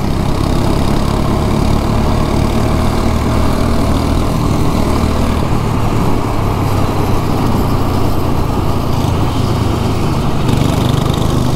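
Go-kart's small engine running steadily under throttle, heard from the driver's seat as the kart laps the track.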